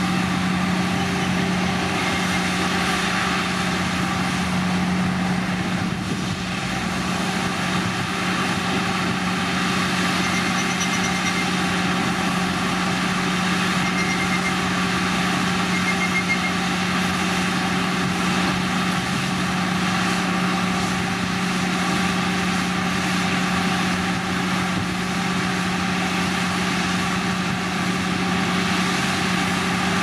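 Heavy road-construction machine's diesel engine running steadily, a constant low drone with no revving.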